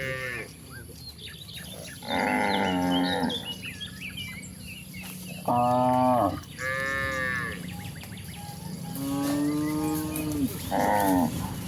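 Cattle mooing, about six long calls one after another at different pitches, as from several cows.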